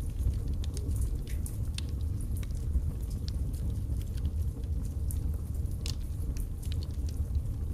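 Birch logs burning in a fireplace: a steady low rush of flame with frequent sharp crackles and pops at irregular intervals.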